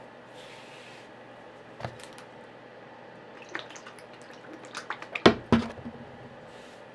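Oil poured from a bottle into a palm and worked into hemp rope by hand: a run of short wet, squishing clicks, loudest a little after five seconds in. A single sharp click comes about two seconds in.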